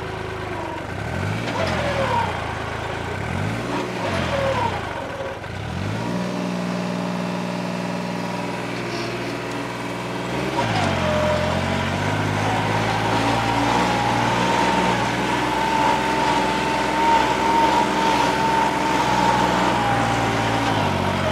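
New Holland 3630 tractor's turbo-modified diesel engine revved up and down three times, then held at steady revs while pulling a cultivator under load. The revs dip briefly and recover about ten seconds in.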